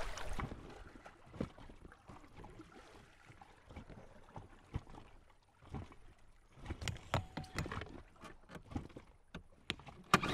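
Scattered light knocks and clatters from gear, oars and hands moving about in an inflatable dinghy, over faint water lapping at the hull.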